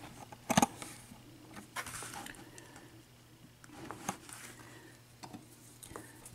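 Small metal lock-picking tools and a padlock being handled: a sharp metallic clack about half a second in, then a few scattered light clicks and clinks.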